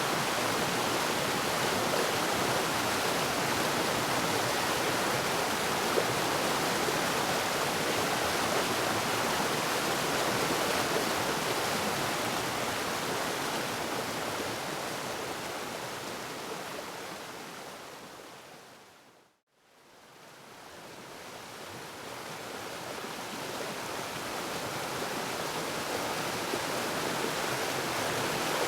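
Waterfall rushing in a steady, even wash of water noise. It fades down to silence about two-thirds of the way through and then fades back up to full level.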